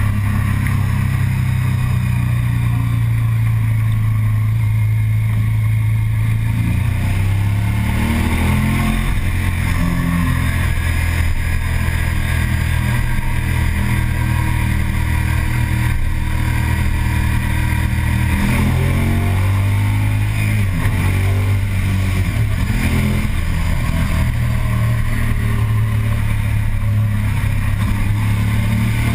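Sport motorcycle engine running at speed, a loud, steady drone over wind rush. Its pitch climbs and drops with throttle and gear changes around eight to eleven seconds in and again around eighteen to twenty-two seconds.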